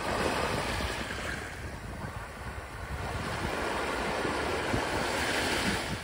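Sea waves washing up the beach in two swells, the second louder near the end, with wind rumbling on the microphone.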